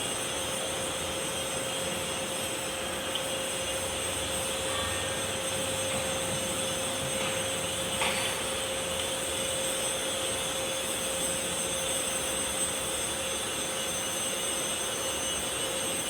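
Kubota D905 three-cylinder diesel engine running steadily, with a constant whine over it. A short knock about eight seconds in.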